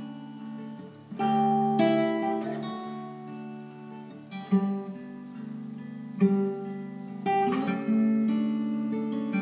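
Solo acoustic guitar played fingerstyle, the instrumental introduction of a folk song: picked notes and chords ringing out, with a new one sounded every second or so.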